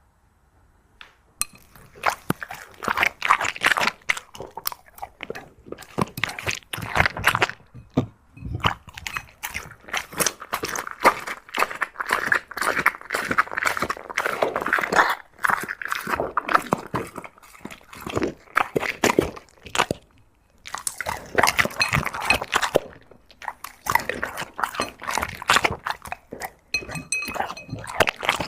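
A dog eating, chewing and crunching its food in quick, irregular crunches, with a short pause about two-thirds of the way through.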